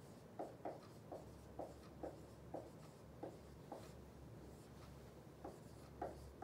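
Dry-erase marker squeaking faintly across a whiteboard in short strokes as words are written, about two strokes a second; the strokes pause about four seconds in, with two more near the end.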